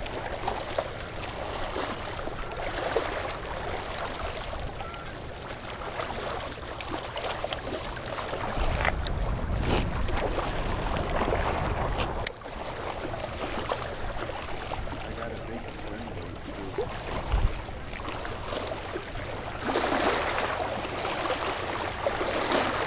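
Wind gusting across the microphone, a steady rushing noise with low buffeting that surges strongest from about nine to twelve seconds in, with a few sharp clicks.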